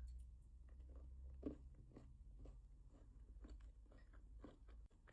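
Faint chewing of milk chocolate with biscuit pieces in it: small, irregular soft crunches and mouth clicks, several a second.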